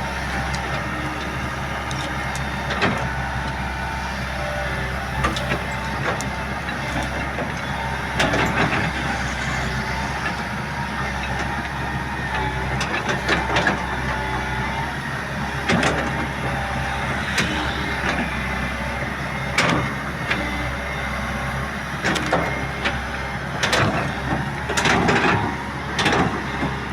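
Excavator running with a steady low drone, with scattered sharp knocks and crunches as it breaks up a tree root; the knocks come thicker near the end.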